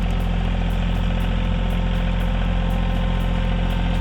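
Rural King RK24 compact tractor's diesel engine running steadily with the backhoe in use, with a faint regular ticking about three times a second.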